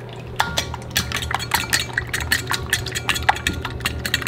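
Eggs being beaten with a fork in a stainless steel bowl: quick, even clinks of the fork against the metal, about six a second, starting about half a second in.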